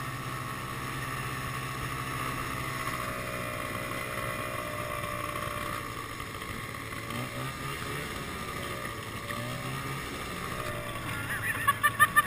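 Snowmobile engine running steadily while riding along a trail, its note wavering slightly up and down. Near the end, a quick run of sharp, loud knocks.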